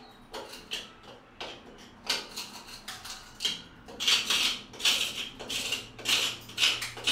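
Steel flat-blade screwdriver scraping and prying at rusted rebar in a concrete ceiling, chipping off loose rust: a run of irregular metallic scrapes and clinks that come louder and closer together from about four seconds in, with the echo of a small concrete room.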